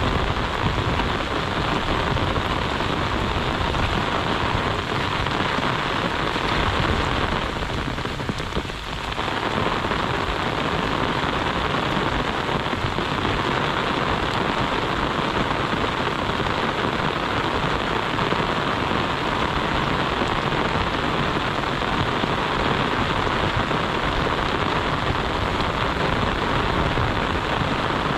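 Heavy monsoon rain falling steadily in a dense hiss, briefly softer about eight seconds in.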